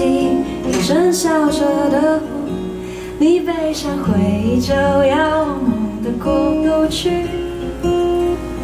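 A woman singing a slow sung melody to her own acoustic guitar accompaniment, in phrases with short breaks between them.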